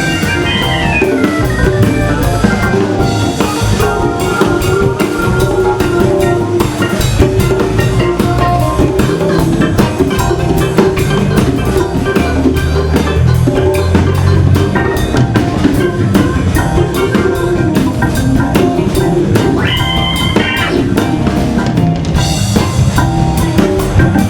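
A band playing live soul-jazz: a Hammond organ's held chords and runs over a busy drum kit with kick, snare and rimshots.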